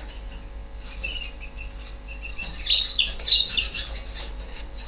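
Small bird chirping and twittering in quick high notes, fainter at first and busier and louder from about halfway through, over a steady low hum.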